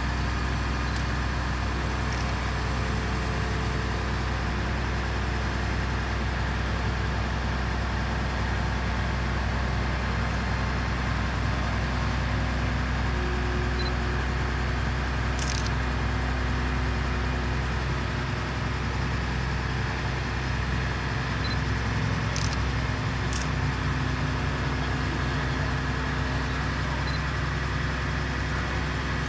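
Large mobile crane's diesel engine running steadily under load as it hoists the building, a constant low drone with a few brief high ticks from the rigging around the middle.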